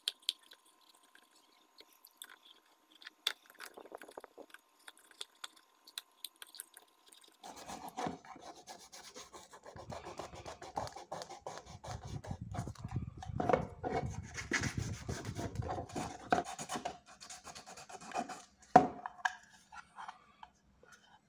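A few short scrapes of a utility knife trimming the edge of a PVC block, then sandpaper rubbed back and forth by hand over the PVC in a continuous scratchy rubbing for about ten seconds. Near the end there is a sharp knock, and the rubbing stops.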